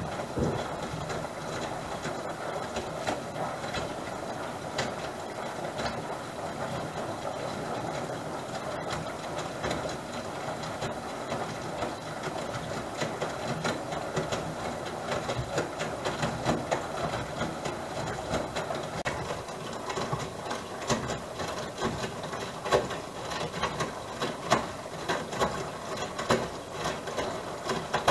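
Regal 8121 washing machine in its wash phase: the drum turning and tumbling wet laundry with water sloshing, and no motor noise heard from its brushless DC drive. Sharp clicks and knocks grow more frequent in the second half.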